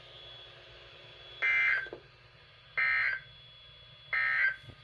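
Three short electronic beeps at a steady pitch, evenly spaced about 1.3 seconds apart.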